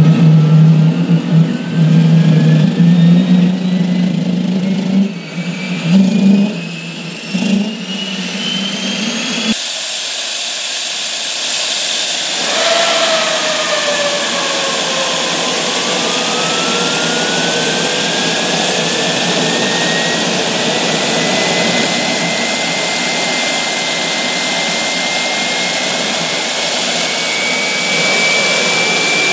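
Rolls-Royce Marine Spey gas turbine running in a test cell, its whine rising in pitch as the spool accelerates. A low steady drone goes with it at first; about nine seconds in the sound changes abruptly to a loud rush of air with a thin high tone over it, while a second whine climbs slowly in pitch.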